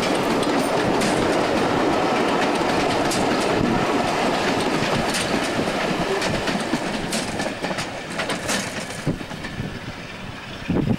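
Diesel-hauled passenger train rolling past, the triple-headed Class 25, 45 and 50 locomotives followed by a rake of coaches whose wheels click over the rail joints. The sound fades over the last few seconds as the train draws away, with a brief low thump at the very end.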